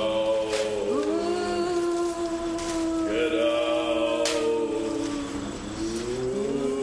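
Eerie wordless voices moaning in long held notes, new ones sliding up into place about a second in, three seconds in and near the end, with a few sharp clicks among them.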